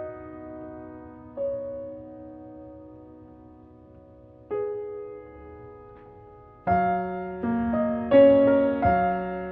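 Background piano music: slow, soft chords that die away, then louder, quicker chords and notes from about two-thirds of the way through.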